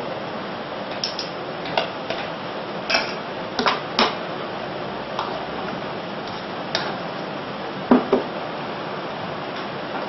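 Scattered clinks and knocks of a metal strainer and utensil against a stainless steel saucepan as boiled potato is pressed through for mashing, over a steady background hiss; the loudest knock comes about eight seconds in.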